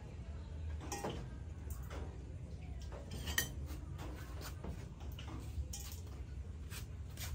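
Scattered clinks and taps of spoons, bowls and eggshells on a metal table as balut eggs are cracked and shelled; the sharpest clink comes about three and a half seconds in.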